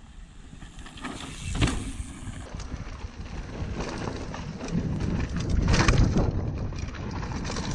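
Mountain bike rolling fast over a dirt trail: steady rumble from the tyres, scattered rattling knocks and wind on the microphone, loudest about six seconds in.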